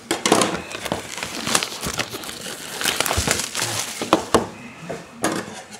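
Plastic and foil packaging on a box of trading cards crinkling and tearing as it is opened by hand, in an irregular run of crackles that thins out near the end.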